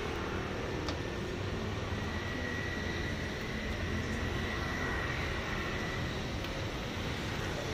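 Steady low rumble of vehicle noise, with a faint high whine through the middle.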